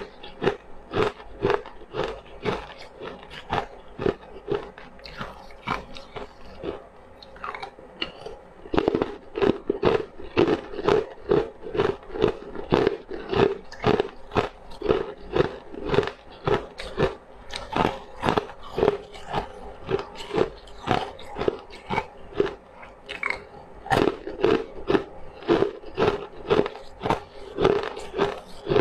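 Close-miked crunchy chewing: a person biting and chewing something crisp in a steady rhythm of about two crunches a second, with a lighter stretch about six to eight seconds in.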